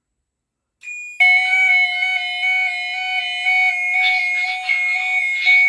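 A GENT Vigilon fire alarm system going into alarm after a detector is triggered: about a second in, one high tone starts, then a moment later several sounders join in at once, a steady high tone with a slight warble, a steady lower tone and a pulsing middle tone, all sounding together loudly.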